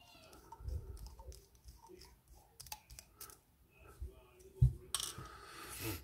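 Small metallic clicks and taps of a precision screwdriver working a tiny screw in the face of a lock cylinder, with one louder knock about four and a half seconds in and a burst of hiss lasting about a second near the end.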